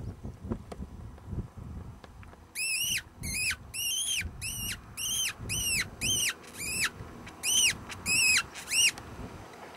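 A rapid string of about eleven short, high, squeaky weasel-style calls, each rising then dropping in pitch. They start about two and a half seconds in, after a stretch of low wind rumble on the microphone.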